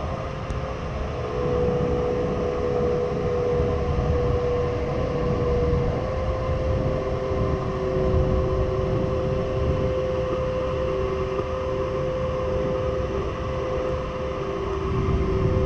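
Steady rush of airflow past a Nimbus 3DT glider's cockpit canopy in flight, a rumbling hiss with no engine running. Two thin steady electronic tones from the variometers sit above it, shifting slightly in pitch now and then as the lift changes.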